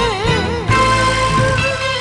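Enka song with band accompaniment: a female singer's held note with wide vibrato ends about half a second in, and the instrumental backing carries on.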